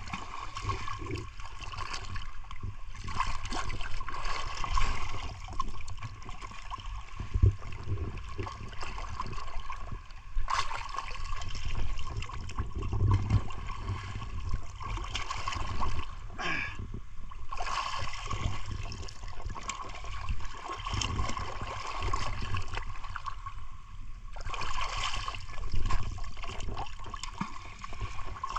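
Shallow seawater sloshing and trickling close to the microphone, swelling and easing unevenly, over a steady low rumble.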